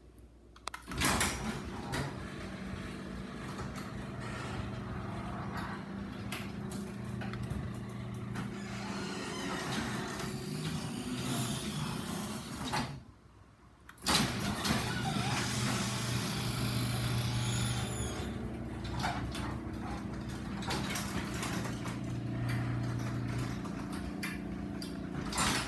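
LiftMaster garage door opener running as it moves the door: a steady motor hum with rattling from the drive. It stops about thirteen seconds in, then starts again a second later for another run of similar length.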